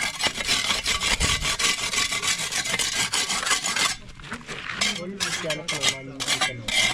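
A mason's tool rasping and scraping against masonry in quick continuous strokes. About four seconds in it breaks into separate, spaced strokes.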